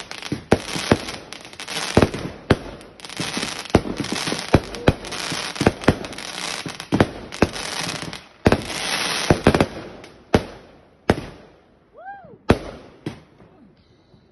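Fireworks going off: a rapid run of sharp bangs with crackling between them as the shells burst. About ten seconds in it thins to a few separate bangs.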